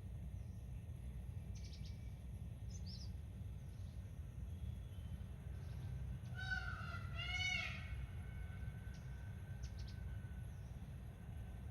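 Wild birds calling over a steady low rumble: scattered faint chirps, and a louder call of two arching notes about halfway through.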